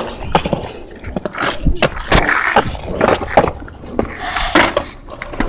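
Skateboard clacks and knocks on hard ground, with wheels rolling between them.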